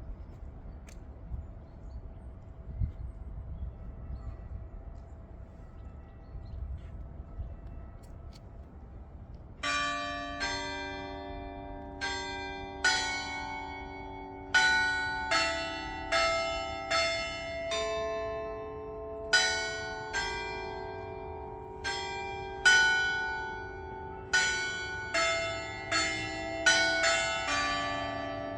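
Church bells ringing: after about ten seconds of faint background noise, several bells of different pitches begin striking one after another, about one stroke a second, each note ringing on and overlapping the next.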